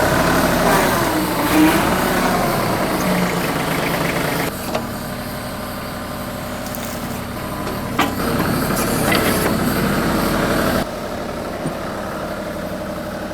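TYM 2515H compact tractor's diesel engine running at part throttle, with a few sharp clicks or knocks around eight and nine seconds in. The sound steps down in level about four and a half seconds in and again near eleven seconds in.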